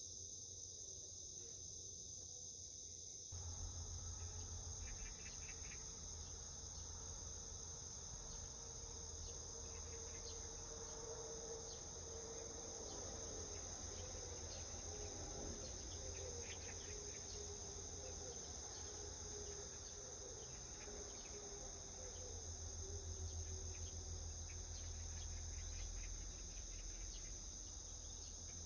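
Faint, steady insect chorus: an even, high-pitched trill that never breaks. A low rumble comes in about three seconds in and runs underneath.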